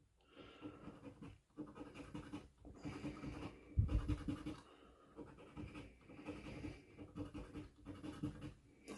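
A penny scratching the coating off a scratch-off lottery ticket in short, uneven strokes.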